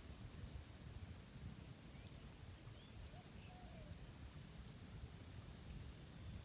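Quiet outdoor ambience: a low wind rumble with an insect calling in short high-pitched pulses about once a second. A couple of faint short calls come in around the middle.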